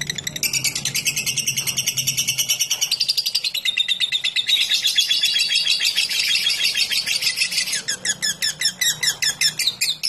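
Fischer's lovebird giving a long ngekek: a fast, unbroken run of high, chattering notes, many to the second, that breaks into more separate, spaced notes near the end.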